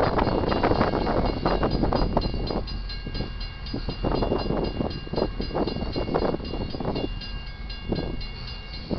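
Loaded freight cars rolling past, wheels clacking over rail joints in quick irregular clusters over a steady rumble, with thin steady high tones above. Wind buffets the microphone.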